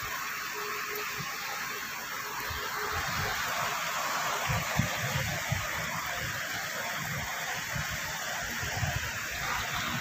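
Steady hiss of rain falling, with irregular low thumps.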